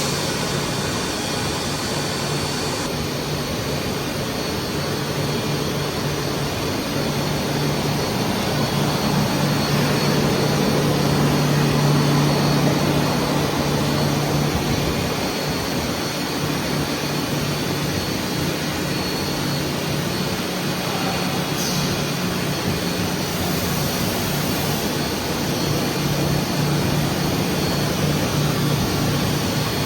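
Stainless steel tube mill with a fiber laser welding and cutting line running: steady machine noise with a low hum, slightly louder a little before the middle.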